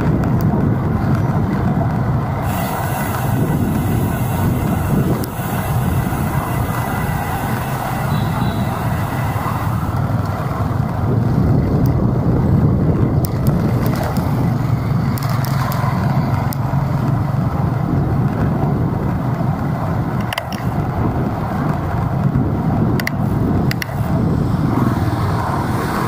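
Steady city road traffic heard from a moving bike: motor vehicle engines and tyre noise running continuously, with a few sharp clicks a little past the middle.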